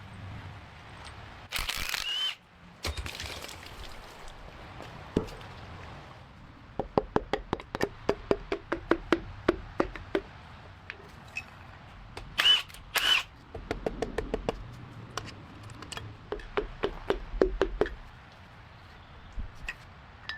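Socket wrench ratchet clicking in quick runs, about seven clicks a second, as bolts on a boat engine are worked. A few short harsh bursts come between the runs.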